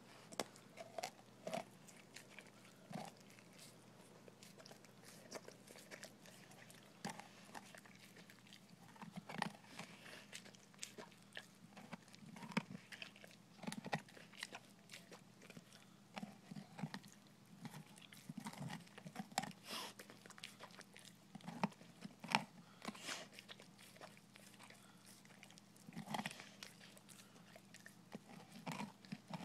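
A dog chewing and crunching frozen raw chicken heads, with irregular sharp crunches of bone and beak breaking between quieter gnawing.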